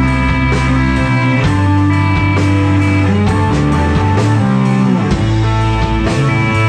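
A rock band playing an instrumental passage: electric guitars holding long notes over a low bass line that changes pitch every second or so, with a steady drum beat about twice a second.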